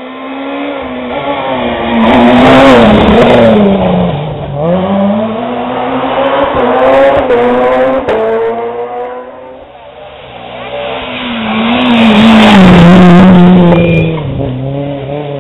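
Rally cars driving past at racing speed, engines revving hard, with the pitch rising and falling through gear changes and braking. It is loudest twice, a few seconds in and again near the end.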